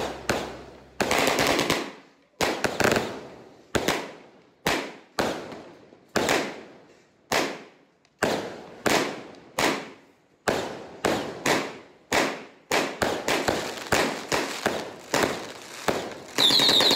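Aerial fireworks going off in quick succession: sharp bangs at roughly two a second, each ringing out briefly. Near the end a loud, close burst crackles with a falling whistle.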